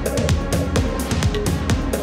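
Electronic background music with a steady, fast beat.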